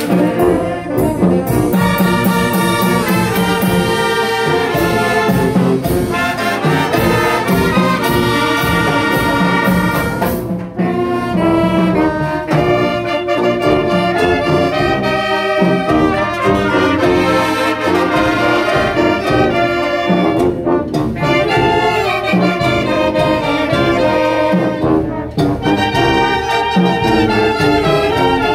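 Oaxacan brass band (banda) playing a melody with trumpets and trombones, in long held phrases that break off briefly about ten and twenty seconds in.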